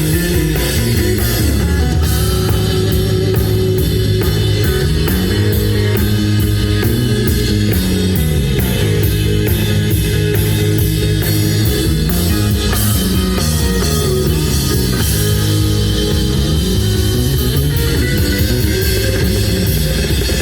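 Rock band playing loudly: drum kit with a steady cymbal beat, electric guitar and a moving bass line.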